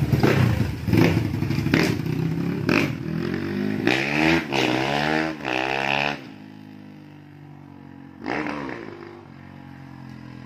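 Kawasaki KLX single-cylinder four-stroke engine, bored up to 200cc and fitted with an aftermarket silencer, revved in sharp blips and rising-then-falling sweeps. About six seconds in it drops suddenly to a much fainter level as the bike rides off, with one more short burst of revs a little after eight seconds.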